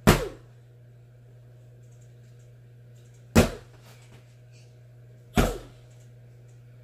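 Three sharp whacks of a child banging a toy figure. The first comes at the start, the next about three and a half seconds in, and the last about two seconds later. Each hit has a short ring, over a steady low hum.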